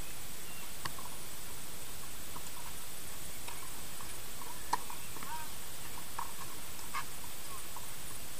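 Distant knocks of a tennis ball being hit and bouncing on a clay court. There are a handful of sharp knocks, the loudest about halfway through, over a steady hiss, with a few short bird chirps.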